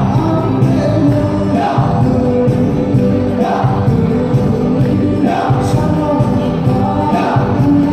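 Song accompanying a traditional Pa-O dance: singing voices over instruments, with a percussion stroke about every two seconds.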